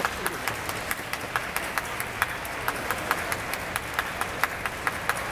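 Stadium crowd clapping: a steady hiss of applause with single sharp claps standing out over it.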